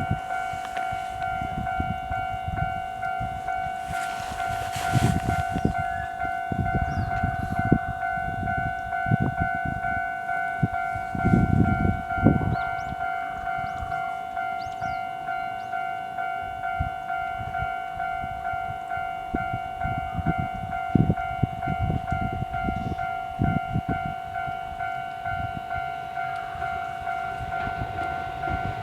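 Japanese railway level-crossing alarm ringing steadily, a rapid, even ding-ding repeated without a break, signalling that a train is approaching. Irregular low rumbles and thumps sound underneath it.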